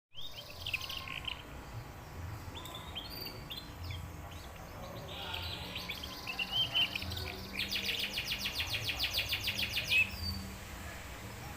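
Domestic canary singing: short high chirps and warbled phrases, then a fast rattling trill of about nine notes a second lasting a couple of seconds in the second half.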